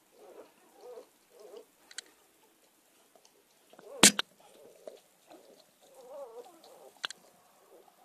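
Newborn Portuguese water dog puppies making small, wavering squeaks and grunts while nursing. A sharp click, the loudest sound, comes about halfway through, with two fainter clicks before and after it.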